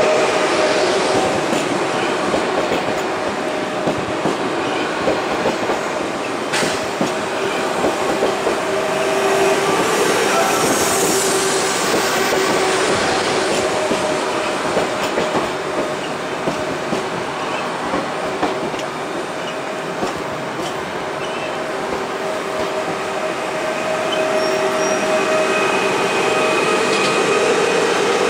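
PESA electric multiple unit in PKP Intercity livery rolling slowly past along the platform, with a steady whine from its running gear and wheels on the rails, and a sharp click once about six seconds in.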